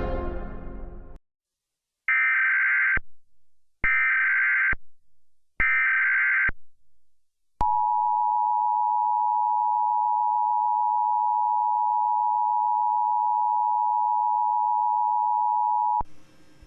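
Emergency Alert System tones: three short bursts of SAME header data, a buzzy digital screech about a second and three-quarters apart, then the two-tone attention signal held steady for about eight seconds. Music fades out in the first second.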